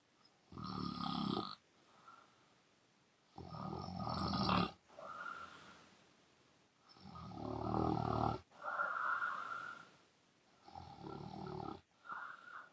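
A woman snoring loudly with her mouth open: four long snores on the breath in, about three to four seconds apart, some followed by a softer breath out.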